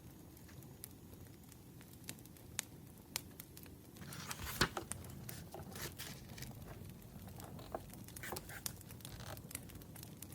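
Firewood burning with scattered crackles and pops, and from about four seconds in a louder rustle and crinkle of paper.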